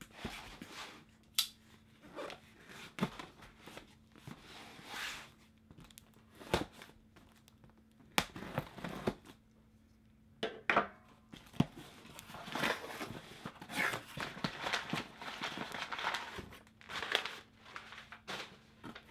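Cardboard shipping box being opened by hand: irregular rustling and scraping of cardboard and packing tape tearing, with a few sharp clicks and knocks scattered through.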